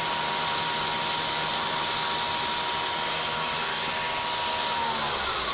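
Mist coolant sprayer hissing steadily on a CNC mill, over a thin steady machine whine that winds down in pitch near the end.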